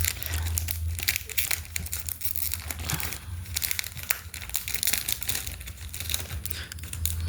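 Plastic packaging crinkling and crackling in irregular bursts as a small freebie is handled and unwrapped, over a steady low hum.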